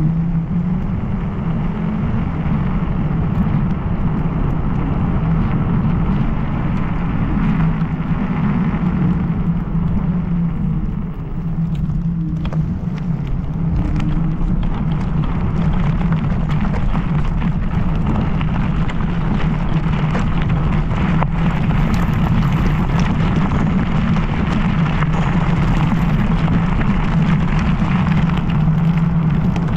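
Steady low wind rumble and tyre noise from riding an MS Energy X10 electric scooter, with a faint motor whine that rises and falls a few times as the speed changes, and a few light knocks from bumps in the road.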